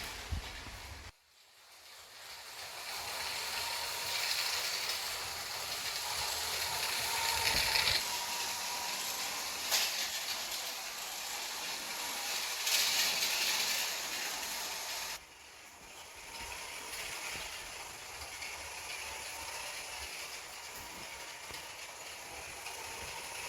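Small electric motor and plastic gears of a motorized LEGO train whirring steadily as it runs, with a couple of brief louder clicks. The sound drops out suddenly about a second in and builds back up, then falls suddenly to a quieter whir a little past the halfway point.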